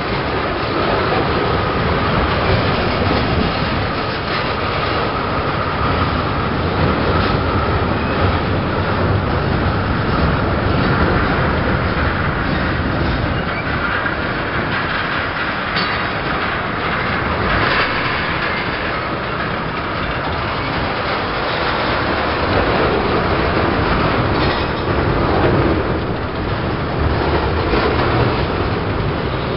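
Freight train cars rolling past at close range: the steady rumble and clatter of steel wheels on the rails as a string of boxcars, tank cars and centerbeam lumber cars goes by.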